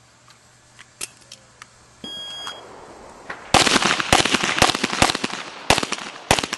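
Shot-timer start beep about two seconds in, followed a second later by a rapid string of pistol shots, many in quick pairs.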